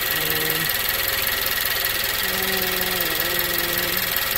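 The Nissan Juke Nismo RS's 1.6-litre turbocharged four-cylinder idling steadily. Its freshly fitted blow-off valve is still closing too late on the return to idle, which the owners take for a vacuum leak that makes the idle stumble.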